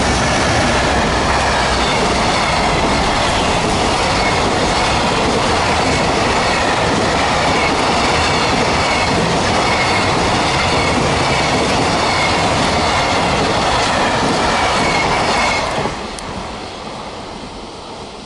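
EF210 DC electric locomotive and its container freight train running past at speed: loud, steady noise of wheels on rails. The sound drops sharply about 16 seconds in as the last wagon goes by, then fades.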